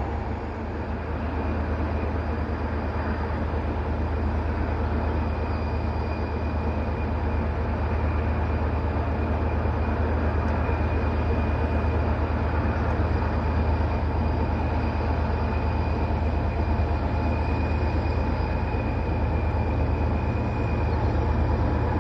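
Diesel locomotive engine running, a steady low drone with a faint high whine, growing slightly louder toward the end.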